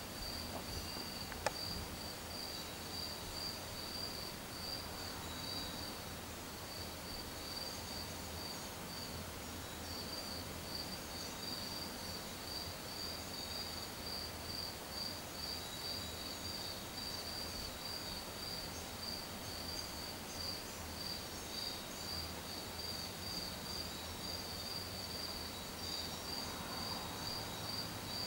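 Field cricket chirping at one high pitch, a steady run of about three short chirps a second, with a brief pause partway through. A single sharp click sounds about a second and a half in.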